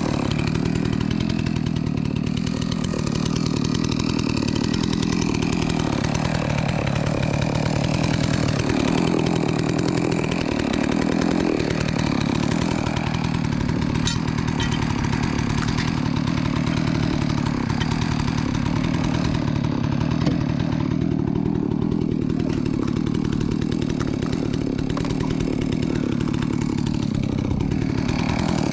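Holzfforma G660 92cc two-stroke chainsaw idling steadily while set down on the ground, its note wavering briefly around ten seconds in.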